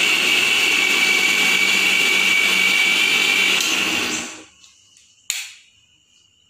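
Orient Electric mixer grinder running steadily with a high whine as it grinds fried tomato, onion, garlic and chilli into a paste. About four seconds in it is switched off and the motor winds down, and a sharp click follows a second later.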